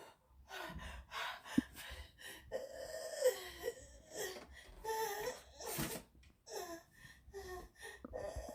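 A woman gasping and breathing hard between short, wavering moans, sounds of pain and distress. There is a louder sharp breath about two thirds of the way through.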